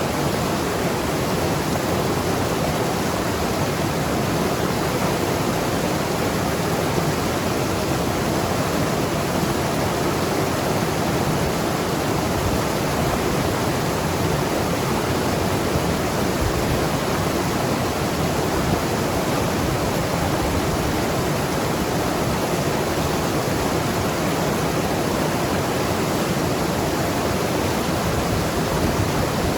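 Mountain river rushing and gurgling over rocks, a steady, even flow of water.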